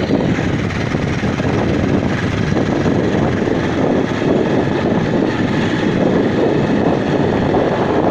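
Motorcycle being ridden along a dirt hill road, its engine and tyres blended with wind rushing over the microphone in a steady, loud noise with no clear engine note.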